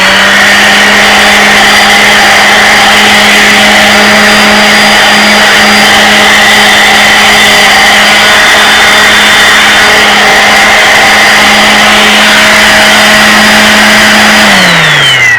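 DeWalt electric sander running at a steady speed, scuffing an outboard motor's old paint just enough for new paint to stick; near the end its motor winds down and stops.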